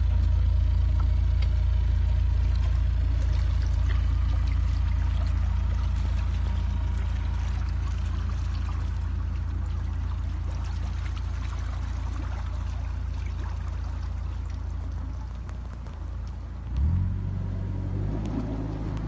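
Narrowboat's diesel engine running steadily at low revs, with water churning in the lock. Near the end the engine note rises briefly as the throttle is opened.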